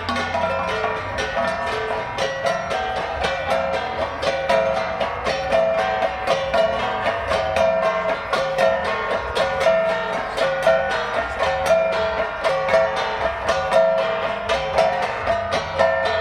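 Ibaloi flat gongs (gangsa) played as an ensemble: a quick, even beat of struck, ringing pitched notes that keeps going steadily.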